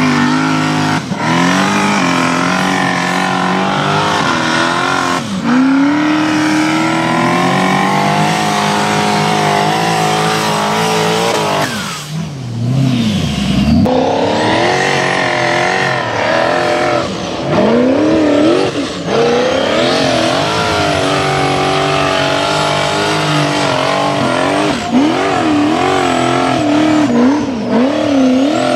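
Turbocharged 5.7-litre LS1 V8 of a Formula Offroad buggy revving hard under full throttle, its pitch rising and falling again and again as the driver works the throttle up the hill. About halfway through the engine note drops away steeply to a low pitch for a moment, then climbs again.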